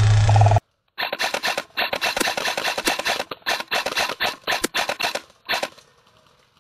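Airsoft rifle firing on full auto in several rapid bursts of sharp clicking shots for about four and a half seconds, starting about a second in. Before that, a loud steady sound cuts off abruptly in the first half-second.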